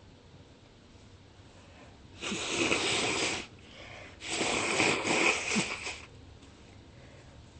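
Two loud, harsh nasal blasts of breath, about a second and nearly two seconds long, with a short pause between, from a person congested with bronchitis.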